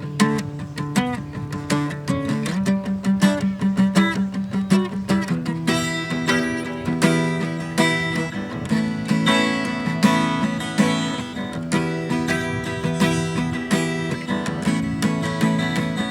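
Acoustic guitar played solo in a steady rhythm: an instrumental passage between sung lines of the song. The playing grows fuller and brighter about five seconds in.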